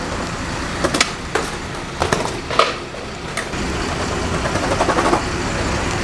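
Skateboard wheels rolling on paved sidewalk with a steady rumble, broken by several sharp, irregular clacks of the board.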